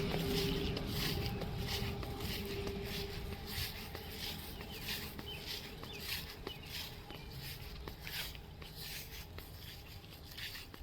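Footsteps crunching at a walking pace, about two a second, with a steady hum in the first few seconds that fades out.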